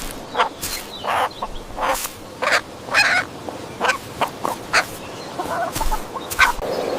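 Poultry calling: about a dozen short calls in an irregular run.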